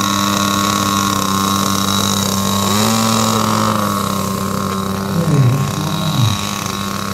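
Small model-airplane engine of a radio-controlled flying lawn mower running at a steady idle, revving up briefly about three seconds in, then settling back.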